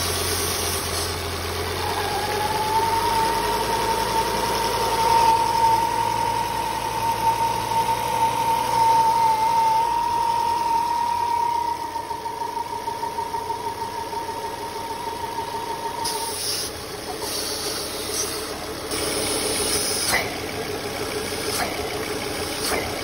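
Volvo C30's five-cylinder engine idling with a steady high whistle from the crankcase ventilation at the oil fill cap. The whistle starts a couple of seconds in and cuts off about two-thirds of the way through. It is the sign of a torn PCV diaphragm in the oil filter housing letting excess vacuum build in the crankcase.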